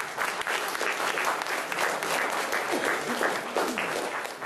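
Audience applauding: dense clapping that begins to thin out near the end.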